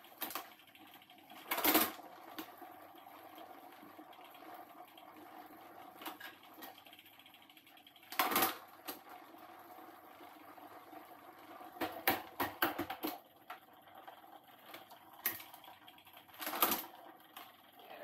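Drivetrain of a Planet X Exocet time-trial bike being turned over by hand, chain and gears running steadily, with several louder clicks and clunks about 2, 8, 12 to 13 and 17 seconds in.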